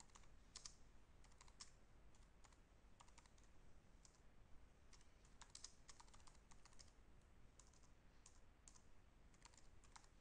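Faint computer keyboard typing: a run of irregular key clicks as a short phrase is typed.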